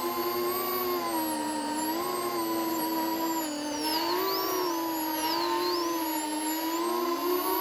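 FPV drone's brushless motors and propellers whining steadily in flight, their pitch wavering up and down with throttle changes.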